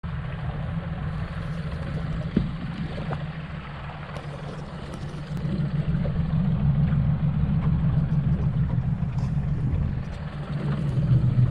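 Skiff's outboard motor running steadily, getting louder about halfway through, with a single knock early on.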